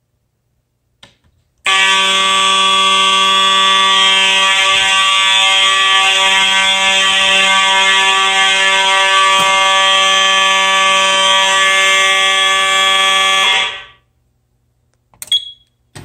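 Simplex 4903 fire alarm horn strobes sounding one loud continuous horn tone with a buzzy, many-overtoned timbre. The tone starts abruptly about two seconds in, holds steady for about twelve seconds, then cuts off. The alarm was set off by test smoke at a smoke detector.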